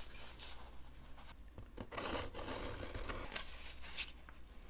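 Cardboard mailer box being handled and opened by hand: soft scraping and rubbing of cardboard, with a few short sharper scrapes.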